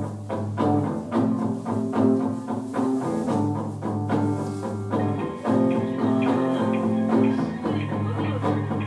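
Live band playing an instrumental passage of the song: held low notes under a steady pulse of plucked notes, with higher melody notes joining about five seconds in.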